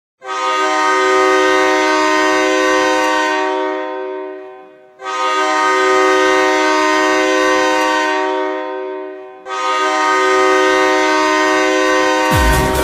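Goal horn sounding three long blasts, each a steady chord of several tones that fades out at its end. Electronic dance music with a heavy beat comes in near the end.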